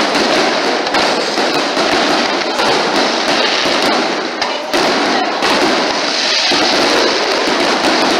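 Aerial fireworks shells bursting in a dense, rapid barrage, the bangs overlapping into a continuous rattle with no pause.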